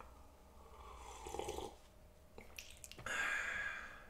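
A man sipping a drink from a cup, with a short slurp about a second in, then a longer, louder breathy exhale about three seconds in that fades away. A faint steady electrical hum runs underneath.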